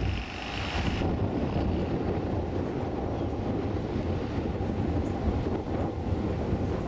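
A classic car driving: steady engine and road rumble. A high whine stops about a second in.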